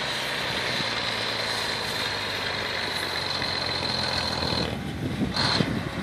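Engine of a heavy V-plow snowplow running steadily under load as it pushes through deep snowbanks, with a thin high whine over it. The sound drops about five seconds in and gives way to a crackling rustle.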